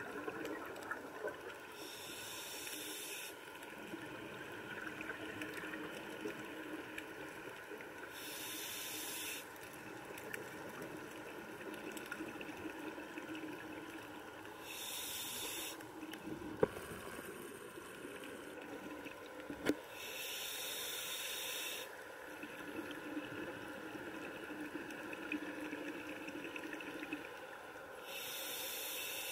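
Scuba diver's exhaled air bubbling out of the regulator, heard underwater: a hissing, bubbling burst about every six seconds, five in all, each lasting one to two seconds, over a steady low hum. Two sharp clicks come near the middle.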